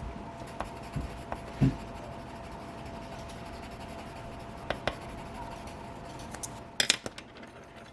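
Light handling noises in a small room: a dull thump about a second and a half in, two light clicks midway, and a short clatter of sharp clicks near the end, over a faint steady hum.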